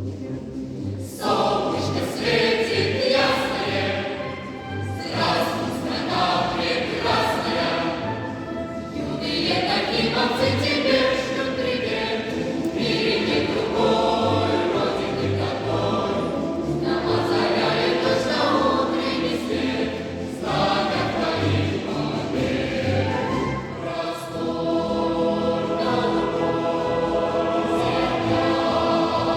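Massed choir of children and cadets singing a march, accompanied by a military brass band with a steady march beat underneath.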